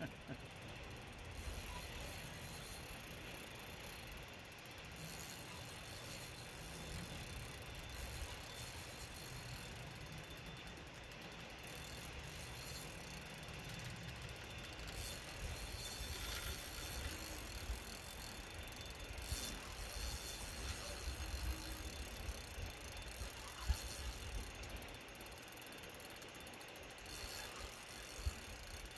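Fishing reel's ratchet clicking faintly as line is worked against a hooked steelhead, over a low rumble.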